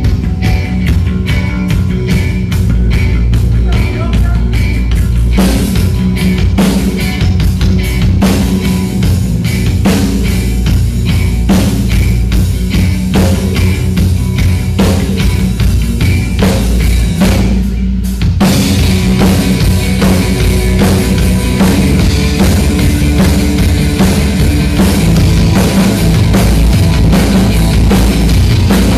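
Rock band playing loud at a sound check, with the drum kit prominent. About 18 seconds in the music breaks off briefly and comes back fuller and brighter.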